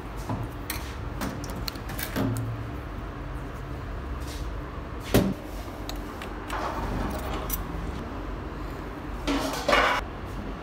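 Small steel diesel injection pump parts clicking and clinking as they are handled and fitted into the pump housing, with one sharp metal knock about five seconds in and a brief rushing scrape near the end, over a steady low rumble.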